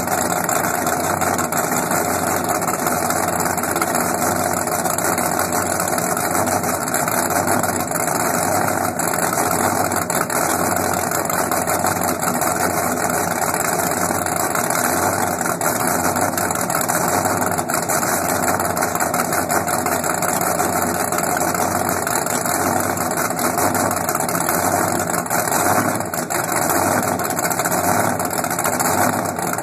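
Powerboat's inboard engines idling steadily on the trailer through open through-transom exhausts.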